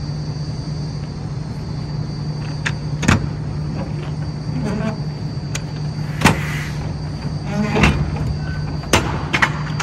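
Metal clanks and two short creaks as the rear door latches of a semi-trailer are worked by hand, over the steady hum of the truck's idling engine. The clanks come irregularly, the loudest a little past the middle.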